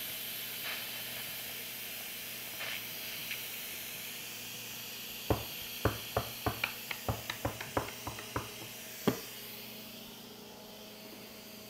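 Instant Pot electric pressure cooker venting steam through its pressure-release valve after pressure cooking: a steady hiss, easing a little near the end. About halfway through comes a quick, irregular run of about a dozen sharp clicks over some four seconds.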